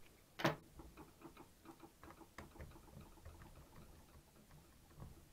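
Small screwdriver undoing a tiny screw in the body of a partly dismantled Tamron 18-270 zoom lens. There is one knock about half a second in, then a run of faint, irregular ticks and clicks as the driver turns.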